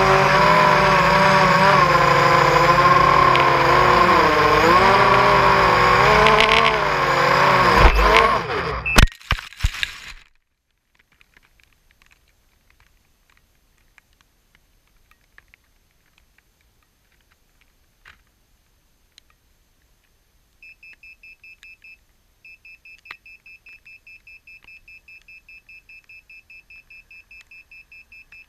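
A racing quadcopter's brushless motors whine, their pitch wavering with the throttle, until a crash about nine seconds in: a sharp knock and a short tumble, and the motors stop. After a quiet stretch, from about twenty seconds in, the quad's buzzer beeps in rapid, evenly spaced pulses, with one short break.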